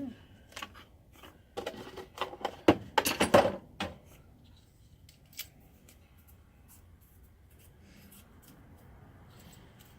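A run of sharp clicks, snips and rustling as hard plastic parts and packaging of a socket rail organizer are handled, loudest about two to four seconds in, then only faint handling noise.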